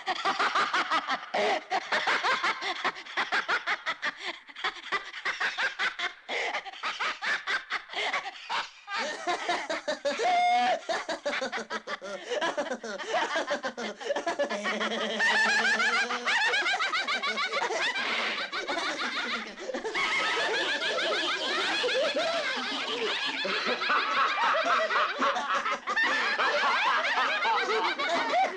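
Several voices cackling and laughing at once in a dense, continuous layered chorus that never pauses: the eerie laughter that follows the recited Book of the Dead incantation.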